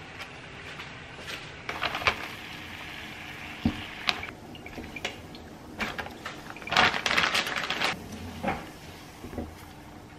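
Kitchen handling sounds: scattered clicks and knocks, then a dense clatter about seven seconds in, as a metal pan of frozen lotus root slices in water is handled and stirred with wooden chopsticks.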